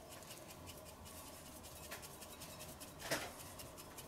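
Faint dry rattle of a spice shaker being shaken in quick, irregular strokes, with one louder scrape about three seconds in.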